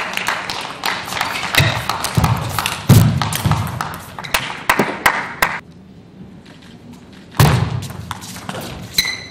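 Table tennis rallies: the plastic ball clicks in quick strikes off bats and table, mixed with heavier thuds on the court floor. About five and a half seconds in there is a short lull before the next rally starts with a loud thud.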